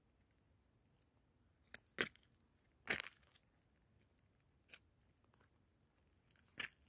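A few short, sharp crunches and scrapes, loudest about two and three seconds in, with quiet between them.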